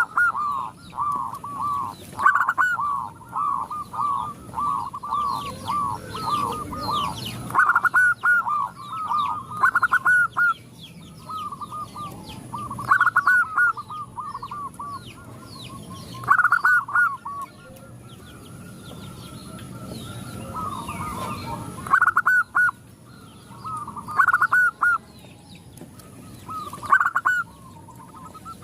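Zebra doves (perkutut) cooing: runs of quick, repeated, rolling notes that stop and start, with more than one bird calling and overlapping, answering a calling female.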